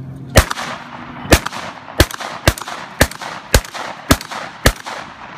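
Eight shots from a Vepr 12 semi-automatic 12-gauge shotgun fired in quick succession, about one every half second to second, each followed by a short echo.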